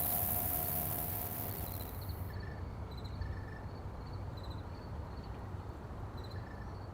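Insects buzzing in a high, dense drone that cuts off about two seconds in. Scattered short insect chirps continue over a steady low rumble.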